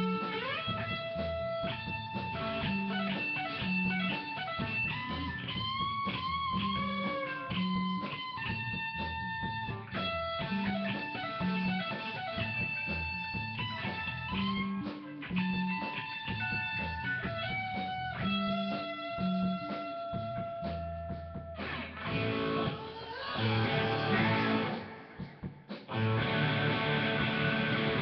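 Rock band rehearsing: an electric guitar plays a melodic lead with held and bent notes over repeated low bass notes. About 22 seconds in the whole band comes in louder and denser, drops briefly, then returns near the end.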